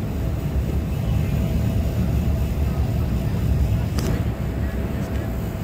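Wind buffeting the microphone as a steady, fluttering low rumble, with a faint steady hum underneath.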